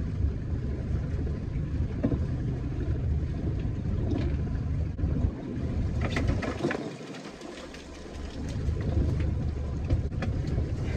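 A boat's engine running with a steady low rumble that drops away briefly a little past halfway and then comes back, with a few short knocks and clatter around then.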